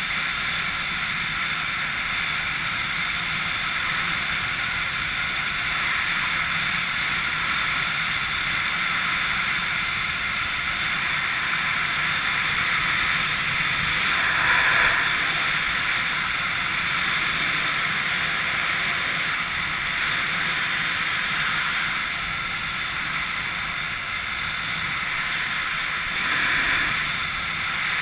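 Steady wind rushing and buffeting over a skydiver's camera microphone during canopy flight, swelling briefly about halfway through and again near the end.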